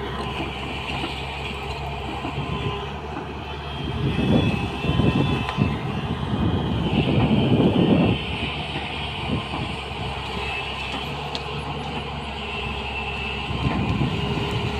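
Excavator engine running steadily, rising to louder, rougher rumbling between about four and eight seconds in and again near the end.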